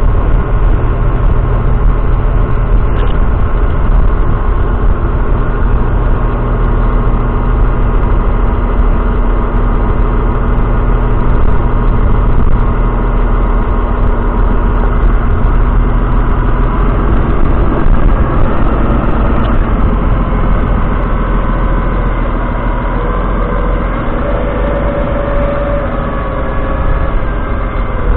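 Claas Axion 830 tractor's 6.7-litre six-cylinder diesel engine running steadily at low revs, a deep, even drone.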